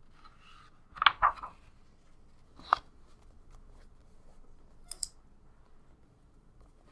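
Sketchbook page being turned over: a soft paper rustle, then a couple of crisp paper flaps about a second in. A single sharp tap follows near the three-second mark, and a short bright click about five seconds in.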